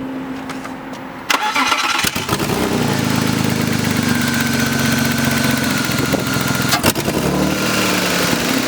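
BMW E36 engine cranked and catching about a second in, then settling into a steady idle: a test start after its faulty ignition coil pack was replaced to cure a misfire.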